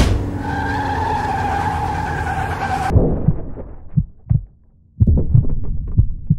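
Car tyres screeching in a skid, a steady high squeal that starts abruptly and cuts off suddenly after about three seconds. Then a low, muffled heartbeat: paired thuds roughly once a second.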